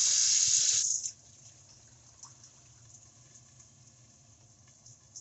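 Cold water running from a tap into a cup of powdered green tea, a steady rush that stops abruptly about a second in.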